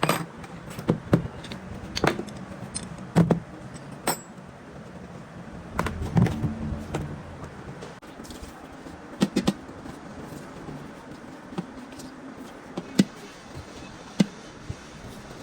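Irregular metallic clinks and knocks, about a dozen in all, of hand tools and diesel pump parts being handled on a workbench, over a steady low workshop hum.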